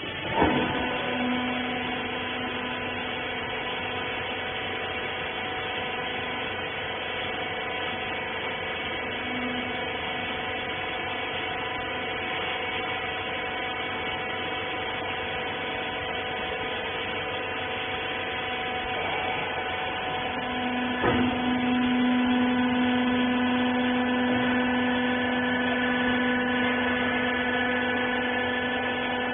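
Hydraulic rag baler's motor and pump running with a steady hum. A clunk comes just after the start and another about 21 seconds in, after which the hum grows louder.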